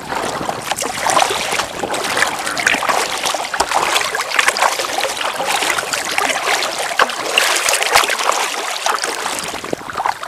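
Water splashing and rushing along the side of a Venture Flex 11 kayak as it moves through the water, close to the microphone: a loud, continuous crackle of small splashes.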